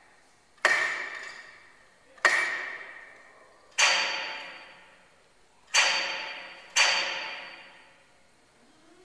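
The installation's key-triggered hammers striking the building's metal structure five times, about one to two seconds apart, each blow ringing out and fading. The first two strikes share one ring and the last three a brighter, higher one, as two different parts of the building are struck.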